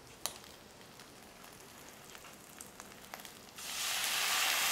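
A hot pan of sautéing vegetables, bacon and tomato paste crackles faintly. About three and a half seconds in it breaks into a loud, steady sizzling hiss as beef stock is poured into it.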